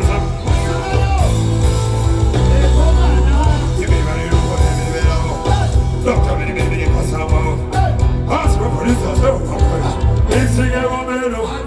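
Band music at a sound check: a heavy, steady bass line under pitched instruments, with a singing voice over it.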